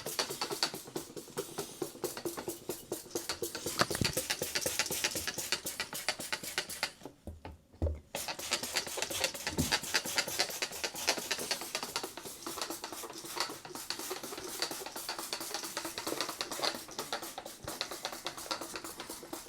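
Background music with a steady beat, dropping out briefly about seven seconds in.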